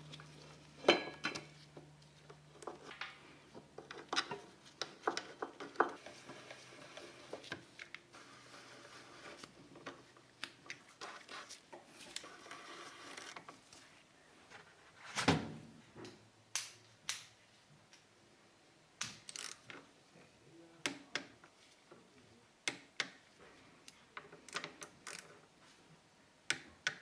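Irregular metallic clinks, clicks and knocks of tools and caliper parts being handled at a workbench during a motorcycle brake caliper rebuild. A faint steady hum runs under them for the first dozen seconds.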